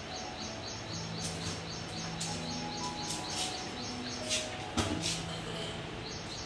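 A small bird chirping in a quick, even series of short high chirps, about five a second, pausing in the middle and starting again near the end, over a low steady hum. There is a single knock about five seconds in.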